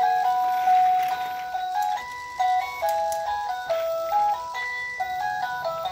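Electronic toy music from a baby walker's play tray: a tinny jingle of simple beeping notes stepping up and down one after another.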